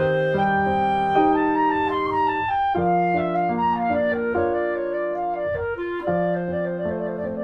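Instrumental background music: a slow melody of long held notes, in a woodwind sound, over piano accompaniment.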